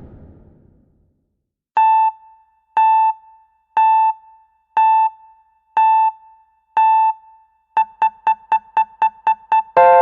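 Electronic beep sound effect: six identical short beeps about a second apart, then eight quick beeps about four a second, ending in a long, louder tone of several notes that rings on and fades, in the manner of a countdown timer. The first second holds the fading tail of the previous effect.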